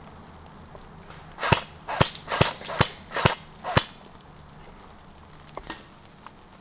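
Airsoft pistol firing six shots in quick succession, about half a second apart, each a sharp crack.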